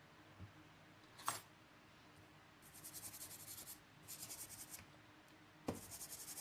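A small hand tool scraping thick dried liquid residue off a MacBook Pro logic board: faint, quick scratching strokes in short bursts, with a sharp tap about a second in and another near the end.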